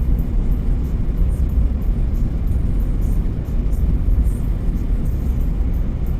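Steady low rumble of a vehicle's engine and tyres, heard from inside the cab as it climbs a mountain road.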